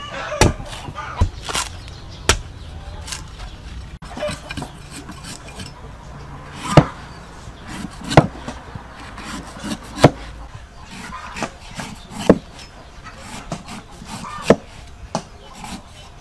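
Large kitchen knife trimming the green husk off a young coconut on a wooden chopping block: irregular sharp knocks every second or two as the blade chops through onto the wood, with scraping of the blade on the fibrous husk between them.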